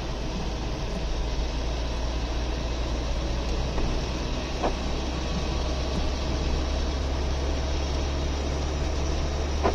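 Inside the cabin of a Citroën XM driving on a wet road: steady engine and tyre drone. A short squeak from the windscreen wipers comes about halfway through and again at the end.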